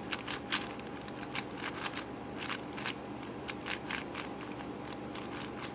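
Layers of a MoYu Aosu GTS M magnetic 4x4 speed cube clicking and scraping as it is turned by hand, an uneven run of short sharp clicks; the cube is new and still needs setup and breaking in.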